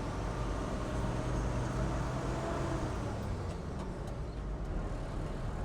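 Engine of a 1942 General Motors-built DUKW amphibious 'duck' running steadily under way, a low even drone.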